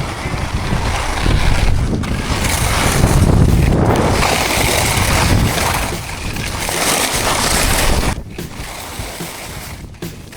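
Skis scraping and hissing over hard, gravelly crusted snow, with strong wind buffeting the microphone. The noise surges and eases, then drops off sharply about eight seconds in.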